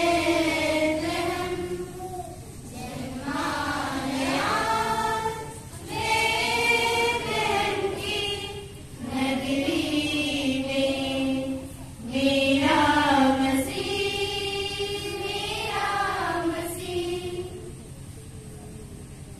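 A choir of young female and children's voices singing together in long phrases, with short breath breaks between them. The singing stops shortly before the end.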